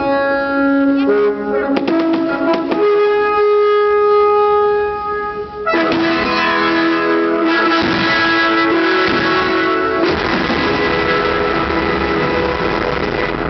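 Music with brass instruments playing sustained notes. From about six seconds in, a dense hiss and crackle of fireworks runs under the music.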